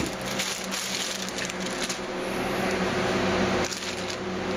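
Crackling, rustling plastic wrapping as the light stand's clear sleeve is pulled off and handled, with a few sharper crinkles. A steady low hum runs underneath.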